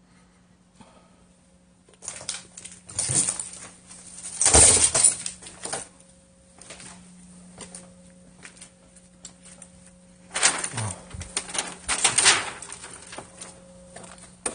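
Rustling and crunching of litter and plastic sheeting being disturbed, in two noisy spells, the loudest about four and a half seconds in, over a faint steady hum.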